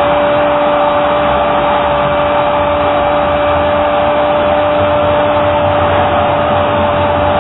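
A television football commentator's drawn-out goal cry, one long "gooool" held on a single steady pitch, over a stadium crowd cheering the goal.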